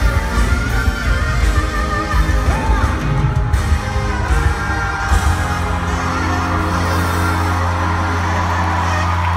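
Live pop-rock band playing over an arena PA, heard from the audience: drums and bass with a voice singing, then about six seconds in the beat stops and the band holds a long sustained chord.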